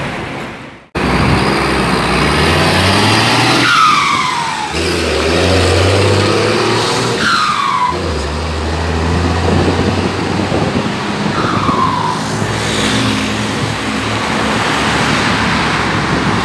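Turbo-diesel bus accelerating away, its engine note climbing and breaking off between gears. A whistle fitted to the turbocharger (a "pente") sings a falling whistle three times as the turbo spins down.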